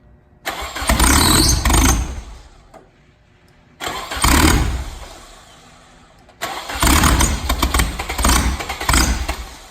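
Turbocharged SR20 four-cylinder engine in a Nissan Bluebird firing up in three loud bursts that each start suddenly and die away. The exhaust exits straight from an open turbo with no downpipe.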